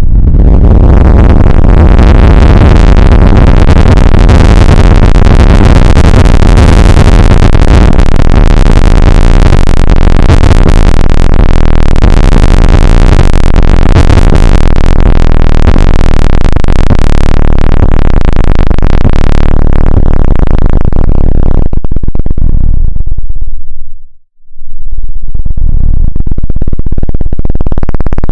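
Loud, harsh electronic synthesizer noise, dense and heavy in the bass and pushed close to full volume. Near the end the high end fades away, leaving a low rumble that cuts out briefly before the sound swells back.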